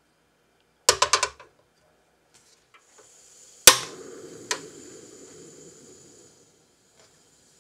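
Portable gas stove being lit: a quick run of sharp clicks about a second in, then a loud click as the igniter fires and the gas flame catches with a steady hiss. Another click follows as the knob is turned to medium-low, and the hiss fades.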